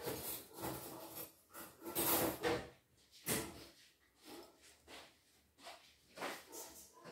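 Irregular rustling and clattering of loose LEGO pieces being handled and sifted during building, in short uneven bursts.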